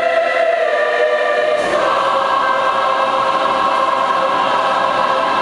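Large mixed school choir singing in harmony: the chord changes under two seconds in, then one chord is held long and steady.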